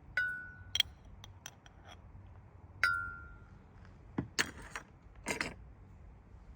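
Small hard objects clinking, with two strikes that ring briefly at one pitch, followed by two short scraping rustles.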